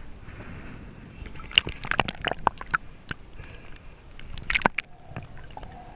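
Water sloshing and splashing against a camera held at the surface as it bobs in and out of the water. Sharp splashy crackles come in a dense run from about a second and a half in, and in a shorter burst a little after four seconds.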